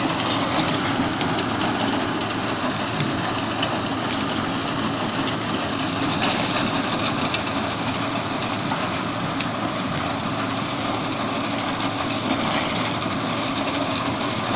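Tractor-driven Yapel DG 140 reaper-binder running as it cuts through dense dry reeds: a steady mix of the tractor and machine running with the rustle and crackle of reed stems being cut and brushed aside, with small snaps here and there.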